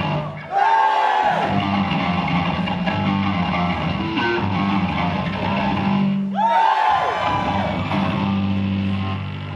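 Electric bass guitar played live through a loud amplified rig, holding sustained low notes with ringing overtones above. The notes break off briefly near the start and again about six and a half seconds in, then pick up with sliding upward notes.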